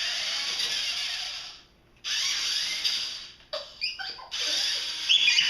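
Small electric motors and plastic gears of toy remote-control cars whirring in spurts as the throttle is worked. The whir cuts out briefly about two seconds in, starts again, breaks off once more after about three and a half seconds, then resumes. A child's voice comes in near the end.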